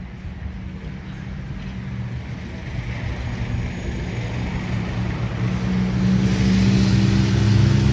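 A motor vehicle approaching, its engine hum and road noise growing steadily louder.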